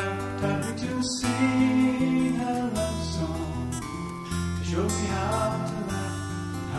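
Background music: strummed acoustic guitar over bass notes that change about once a second.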